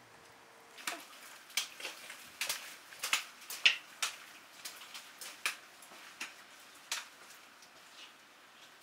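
Trekking pole tips and boots tapping and scuffing on wet stone in a stone underpass: irregular sharp clicks, one or two a second, thinning out after the first half.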